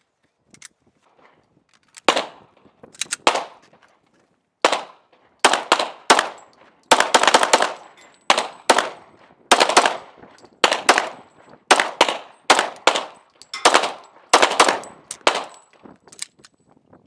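Semi-automatic pistol shots fired in rapid strings, several shots a second, each crack followed by a short echo. The shooting starts about two seconds in and stops shortly before the end.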